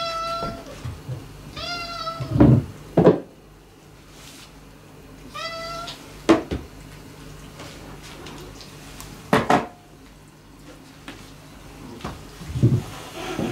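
A long-haired calico cat meowing three times, short calls a couple of seconds apart, the second and third rising then falling in pitch. Several sharp knocks come in between, the loudest just after the second meow.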